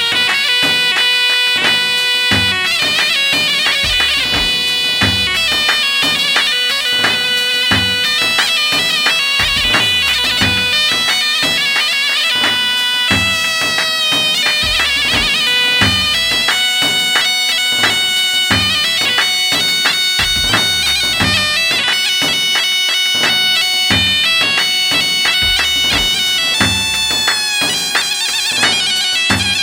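Music: a loud reed-pipe melody played over a steady drone, with a regular drum beat underneath.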